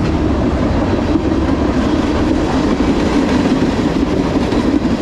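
Freight cars of a CSX mixed freight train rolling past: loaded centerbeam flatcars and then tank cars, with a steady rumble and clatter of steel wheels on the rails.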